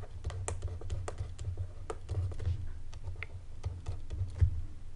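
Light, irregular clicks and taps of a stylus on a pen tablet as mathematical symbols are handwritten, about twenty short ticks over a low steady hum.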